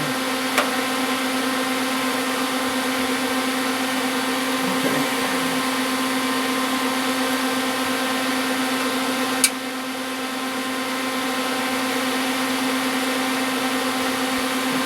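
Steady machine hum at one constant pitch, like a motor or fan running. A small click comes about half a second in and a sharper one near the ten-second mark.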